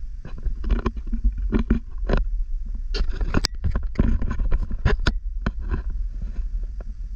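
Wind buffeting the camera microphone: a steady low rumble broken by irregular crackles and pops as gusts hit the mic.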